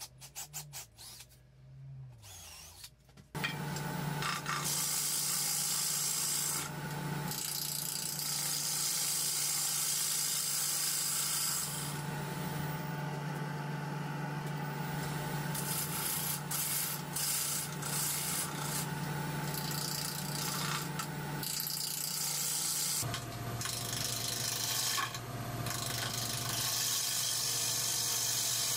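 A cordless drill runs into a wooden slab in short bursts, its motor pitch rising and falling. Then a wood lathe runs with a steady hum while a gouge cuts the spinning zelkova slab, the cutting noise loud in long stretches that come and go.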